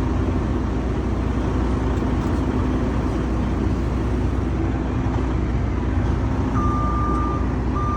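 A vehicle engine idling steadily. Near the end, a reversing alarm starts beeping at an even pace.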